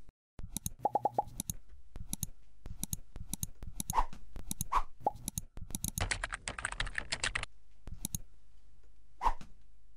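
Computer mouse clicks and keyboard typing, with a fast run of typing about six seconds in and a few short pops between the clicks.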